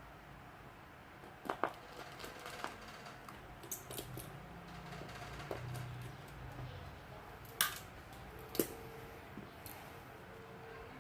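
Small sharp clicks and taps of hand tools against a smartphone's parts during repair work: a quick pair early on, a few lighter ones, then two louder single clicks about a second apart.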